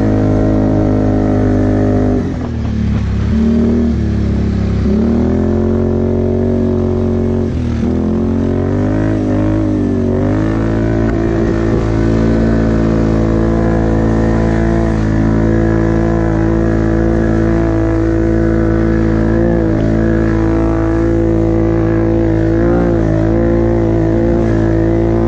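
Can-Am Outlander ATV engine running while riding on snow. The revs drop and rise again several times in the first ten seconds, then hold at a steady pitch.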